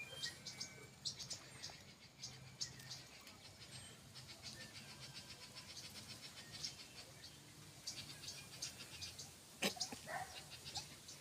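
Pets playing: many light, quick scratching and tapping sounds, with one louder sharp click near the end.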